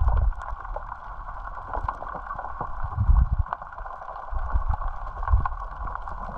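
Underwater ambience recorded through a camera housing: muffled water movement and gurgling with low rumbling surges near the start, about three seconds in and again near the end. Scattered faint clicks run throughout.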